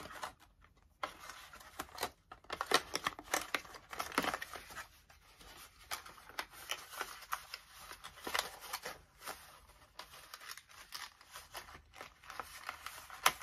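Small cardboard product box and its packaging being handled: irregular rustling, crinkling and light taps as an adapter cable is packed back into the box.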